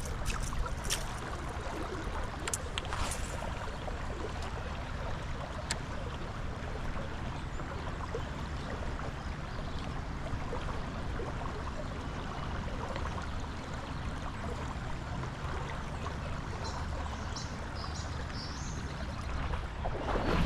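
Steady rush of a fast-moving creek running high, with a few faint clicks in the first few seconds.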